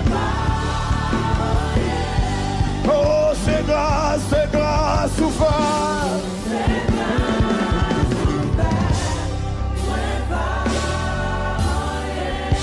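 Gospel worship song: voices singing with wavering, held notes over a band with a steady low bass.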